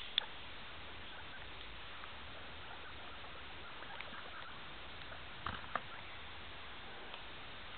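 Guinea pigs moving about on wood-shaving bedding: a few soft clicks and rustles over a steady hiss, with a small cluster about five and a half seconds in.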